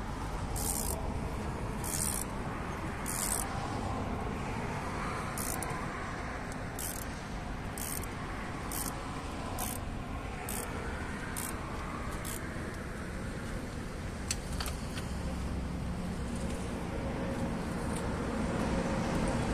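Ratchet socket wrench clicking in short, even strokes about once a second as bolts on a Scania truck engine's throttle valve are worked, the clicking stopping about two-thirds of the way through, with a few single metal clicks after. A steady low rumble runs underneath.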